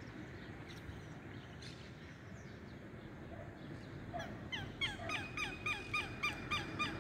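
Southern lapwing (quero-quero) calling: a fast run of repeated calls, about four a second, starting about four seconds in, after a few seconds of faint background hiss. These are the bird's alarm calls, the cry that earns it the name 'sentinel of the pampas'.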